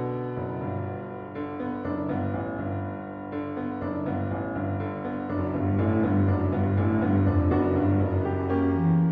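Background music: piano, with low string notes.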